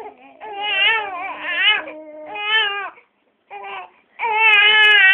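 An infant crying: a run of short wavering wails, a brief pause about three seconds in, then one long loud wail near the end.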